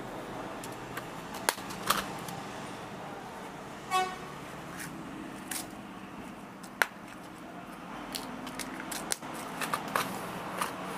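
Scattered small clicks and taps of plastic hook packets and boxes being handled, over a faint steady background, with one short vehicle horn toot about four seconds in.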